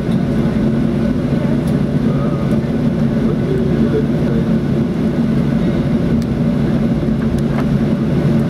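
Steady cabin hum and rumble of a Boeing 737-800 taxiing after landing, its CFM56-7 engines running low under the wing.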